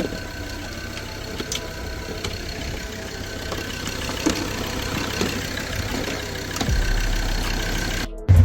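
Side-by-side UTV engine idling steadily, growing louder about two-thirds of the way through.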